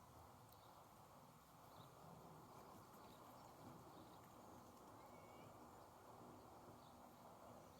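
Near silence: faint outdoor background hiss with a few faint, short bird chirps scattered through it.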